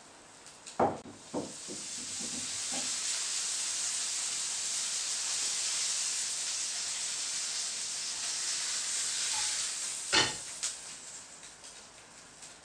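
Pork schnitzel frying in hot oil in a pan: the sizzle swells up about two seconds in, holds steady, and dies down near the end. Sharp clicks of metal tongs on the pan come near the start, with a louder one about ten seconds in.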